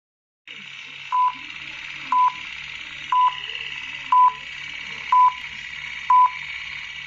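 Film-leader countdown sound effect: short beeps on one steady tone, one every second, over a steady hiss.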